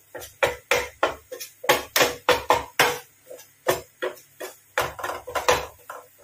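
Spatula scraping and knocking against a steel pan while stirring a crumbly butter-and-flour roux, about three quick strokes a second with a slight metallic ring; the stirring stops near the end.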